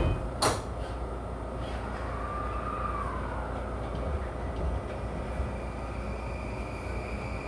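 E235 series electric train running, heard from inside the car: a steady low rumble of the wheels on the rails. There is a sharp knock right at the start and another about half a second in, and a faint whine rises and falls around two to three seconds in.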